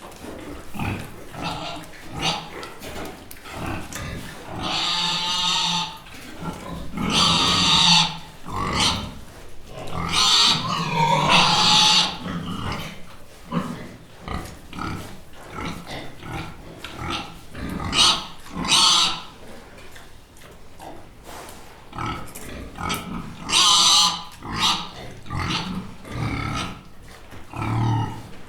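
Pig grunting over and over in short bursts, breaking into loud, drawn-out squeals about five times.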